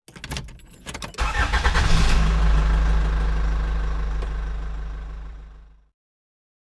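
Sound effect for a channel logo intro: a run of sharp glitchy clicks, then about a second in a deep, steady mechanical rumble that fades away just before the end.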